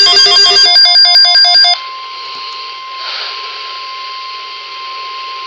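A loud, rapidly pulsing electronic alert beep that cuts off under two seconds in. It gives way to the NOAA Weather Radio 1050 Hz warning alarm tone, held steady over radio hiss, which announces a severe thunderstorm watch broadcast.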